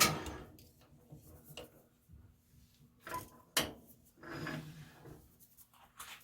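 Metal lathe running, then dying away just as the sound begins. After that come a few separate light knocks and short rubs of small metal parts and tools being handled.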